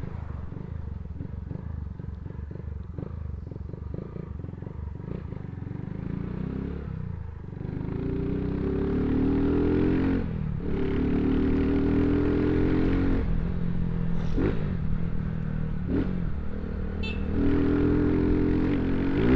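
Motorcycle with a loud aftermarket exhaust riding, its engine pulsing low at first, then accelerating hard from about eight seconds in, the pitch climbing and dropping sharply at each of several gear changes.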